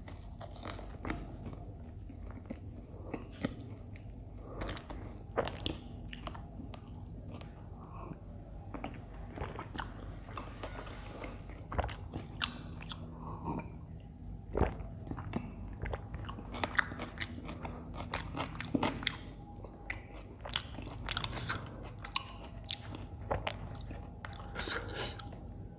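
Close-up eating sounds from a toasted aloo sandwich: the bread being bitten and chewed with mouth open, with many small crunches and clicks scattered throughout.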